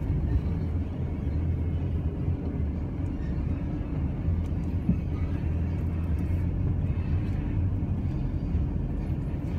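Chevrolet S10 ZR2 pickup driving slowly on a dirt track: a steady low rumble of engine and tyres.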